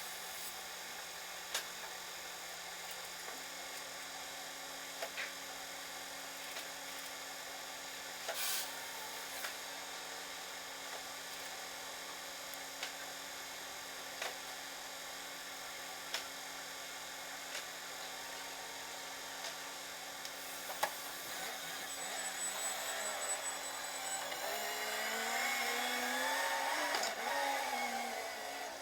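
A steady low hum with scattered faint clicks. About three-quarters of the way through, a motor vehicle's engine is heard in the street, growing louder as its pitch climbs and then falls near the end.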